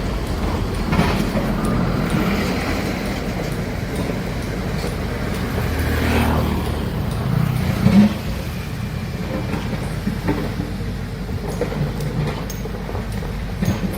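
Large excavator's diesel engine running with a steady low drone, with scattered clanks and a louder knock about eight seconds in.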